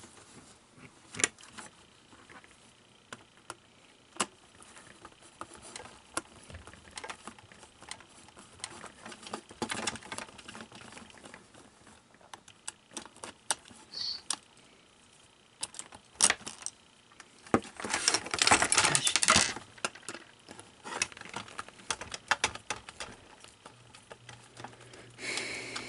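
Scattered clicks and light rattles of small screws and plastic parts being handled as an animatronic figure's head is taken apart, with a denser burst of rattling about eighteen seconds in.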